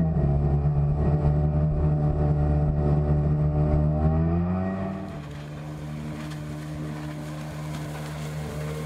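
Arctic Cat Tigershark Montego personal watercraft's two-stroke engine running under way, its pitch rising as it revs up about four seconds in. About five seconds in it drops to a quieter, steadier drone, the jet ski now heard from farther off.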